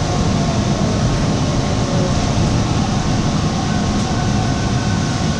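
Subway train running through the tunnel, heard from inside the car: a steady rumble with a faint high tone over it.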